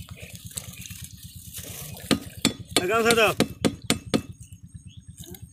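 A series of sharp metallic clinks and taps, coming more often from about two seconds in, over a steady low rumble. A man's voice calls out briefly near the middle.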